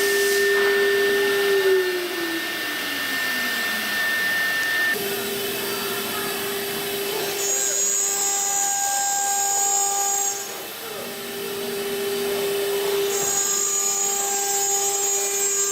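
Two-head CNC router for foam moulds running, its spindles giving a steady whine over a cutting hiss. One tone slides down in pitch about two seconds in, and a shrill high tone comes and goes twice.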